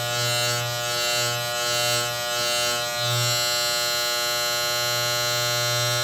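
Electric barber clippers buzzing, the buzz swelling and dipping about twice a second for the first three seconds as the blades are worked through hair, then running steadily.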